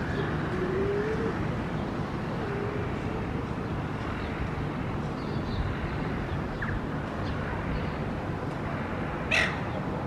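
Steady city street and traffic noise, with one short harsh squawk from a silver gull about nine seconds in, the loudest thing heard.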